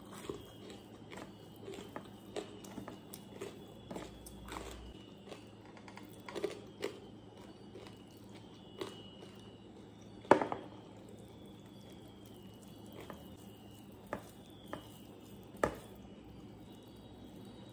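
Close-up eating sounds: soft chewing and rice being mixed by hand on a steel plate, with scattered light clicks and taps of dishes. A sharp knock about ten seconds in stands out as the loudest.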